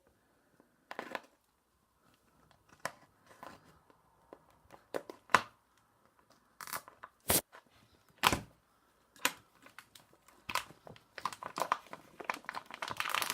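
Plastic packaging around a filament spool being handled and torn open: scattered crackles and rips, turning into dense crinkling near the end.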